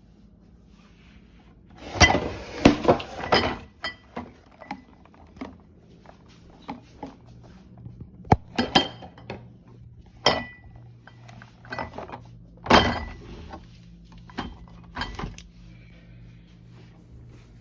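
Pantry bottles and containers clinking and knocking as they are handled and set down. A quick burst of clatter comes about two seconds in, followed by scattered single clinks and taps.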